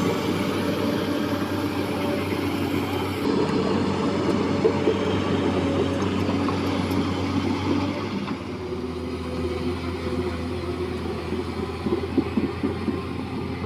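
Liugong crawler excavator travelling on its tracks, its diesel engine running steadily with a low hum. From about eight seconds in it is a little quieter, with irregular clanks over the engine.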